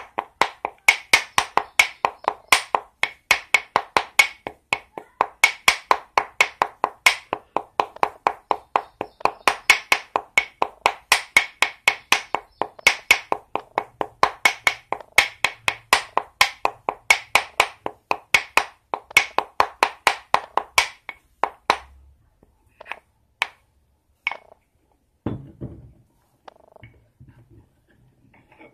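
Wooden pestle pounding fresh leaves in a ceramic mortar: fast, regular knocks, about three a second, grinding the leaves to a paste. The pounding stops about 22 seconds in, followed by a few scattered knocks and one duller thump.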